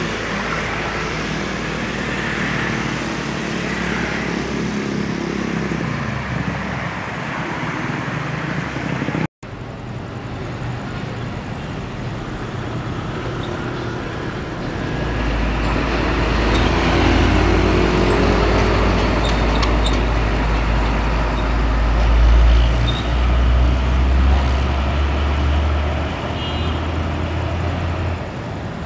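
Road traffic: motorcycles and cars passing. In the second half a deep, steady engine rumble from a heavy truck close by comes in and is loudest a little past the middle.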